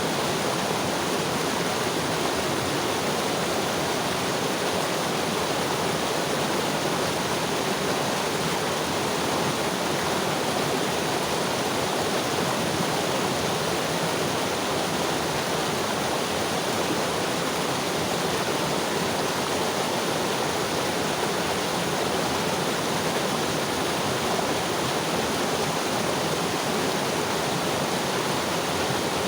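Mountain river flowing: a steady rush of water over rocks with no breaks or changes.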